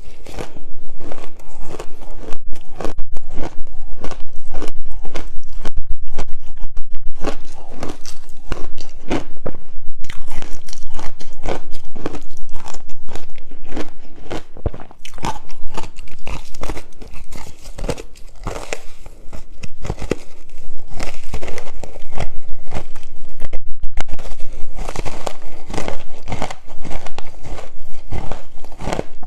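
A person biting and chewing chunks of ice: loud, rapid crunching in long runs with short lulls between.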